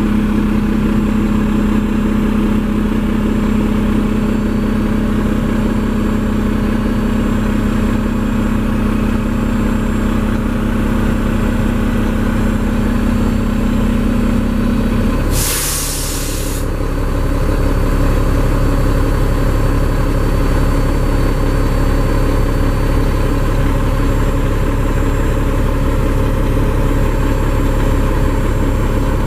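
Mack MP7 inline-six diesel idling steadily, heard from inside the truck's cab. About halfway through, a steady hum stops and a sharp hiss of air bursts out for about a second from the air-brake system, typical of the compressor cutting out and the air dryer purging.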